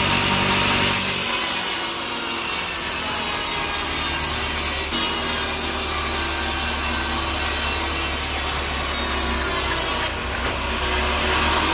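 Sawmill saw cutting through a teak log: a steady noisy cutting sound of the blade in the wood over the low hum of the saw's motor. The cut strengthens about a second in and eases near the end.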